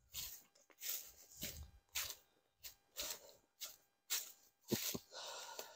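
Faint footsteps on dry leaves and dead grass, a steady walking pace of about two steps a second, as the walker approaches.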